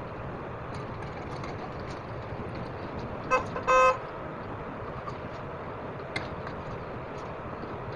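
Corn fritters deep-frying in hot oil in a wok, a steady sizzle, with a metal spatula clicking against the wok about six seconds in. Two short tooting beeps, the second a little longer, cut through about three and a half seconds in.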